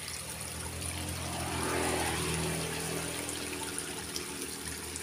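Water trickling and flowing in a small irrigation ditch. A low hum runs underneath, swelling about two seconds in and easing off.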